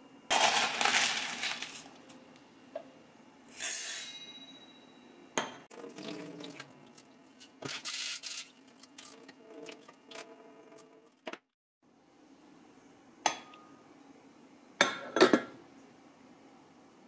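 Dried mung beans and Job's tears being rinsed in water, heard as several short rattling, splashing bursts, then sharp clinks near the end as a glass lid goes onto a metal saucepan.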